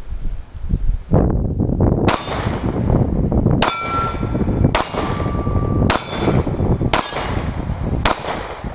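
Kahr CM9 9mm pocket pistol fired in a steady string, about one shot a second, each shot followed by the clang and ring of a steel target being hit.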